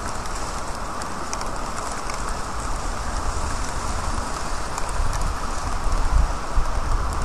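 Steady rain falling on a wet street, with scattered small ticks of drops. A low rumble grows louder about five seconds in.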